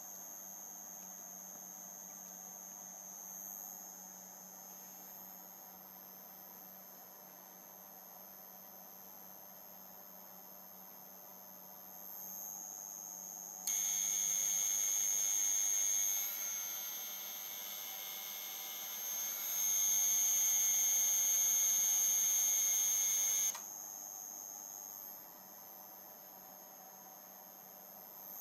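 Sine-wave inverter prototype running with a steady high-pitched electronic whine. About halfway in, a much louder, harsher buzz comes in, dips for a few seconds, then cuts off suddenly some ten seconds after it began.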